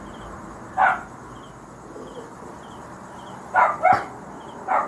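A dog barking: four short barks, one about a second in and three close together near the end.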